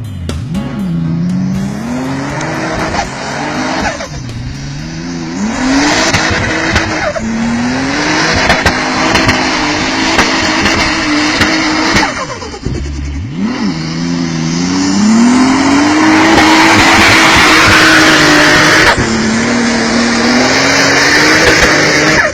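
Off-road vehicle's engine revving hard again and again, each time rising in pitch and then dropping back, about six times. A loud rushing noise runs over it and is strongest in the second half.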